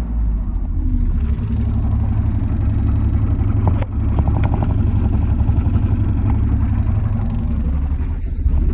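Backhoe loader's diesel engine running steadily at a low rumble, with a brief knock and a rattle of quick metallic ticks about four seconds in.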